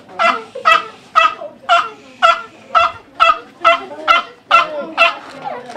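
A dog barking over and over in a fast, even series, about two barks a second.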